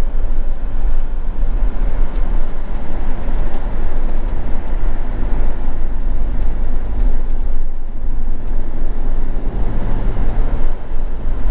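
Steady engine and road noise of a motorhome on the move, with a strong low rumble.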